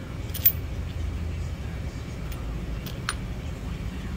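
A few light metallic clinks of a wrench and clamp hardware against a steel milling-machine table, the sharpest about half a second in and another about three seconds in, over a steady low hum.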